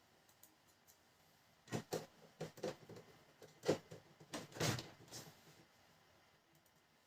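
A quick run of about a dozen sharp knocks and clicks as parts of a Pantum M7102DW laser printer are fitted back into place during reassembly.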